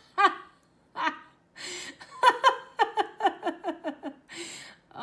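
A woman laughing at herself: a few short sounds, then a run of quick 'ha' bursts, about four a second, with a sharp breath drawn in just before and just after the run.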